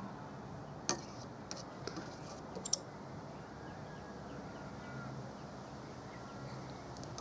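A few light, sharp clicks and taps, the loudest a quick double click near the three-second mark, over a steady low background with faint distant bird calls.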